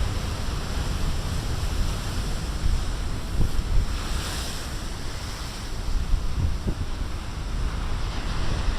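Big storm waves breaking and washing, with wind buffeting the microphone. There is a brighter surge of hissing wash about four seconds in.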